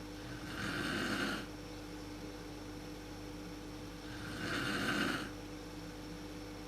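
A woman snoring in her sleep: two snores about four seconds apart, each lasting about a second.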